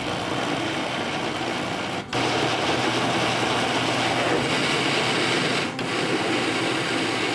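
Countertop blender running, puréeing cooked sweet potato, eggs, milk and sugar into a thick pudding batter. It cuts out for an instant about two seconds in and comes back louder, with another brief dip near the end.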